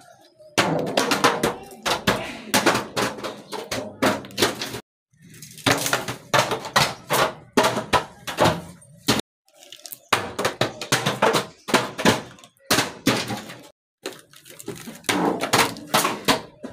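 Bottles tumbling down stone stairs: runs of rapid hard knocks and clatter as they bounce from step to step. The runs are separated by brief pauses, about a third and halfway through and again near the end.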